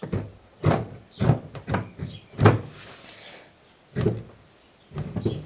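About seven uneven, dull knocks of a Series 1 Land Rover gearbox main shaft and gear on a wooden workbench as a tight-fitting third gear is forced down onto the shaft.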